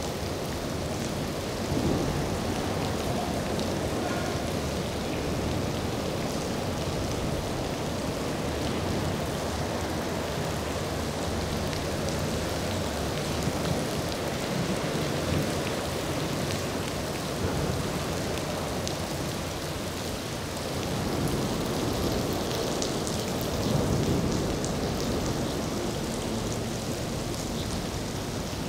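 Steady rain falling, a continuous hiss that swells louder about two seconds in and again for a few seconds past the twenty-second mark.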